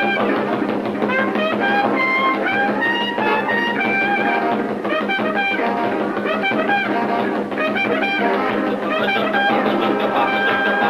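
Hot jazz band playing, a trumpet-led brass line over the band with saxophones and drums.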